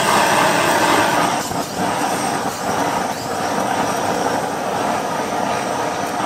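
Handheld butane blowtorch on a gas canister burning with a steady, loud rushing hiss as its flame is played over a sauce-coated octopus skewer.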